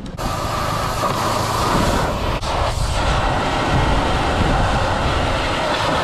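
Pressure washer wand spraying: a loud, steady rushing of the water jet that starts suddenly right at the beginning and dips briefly about two and a half seconds in.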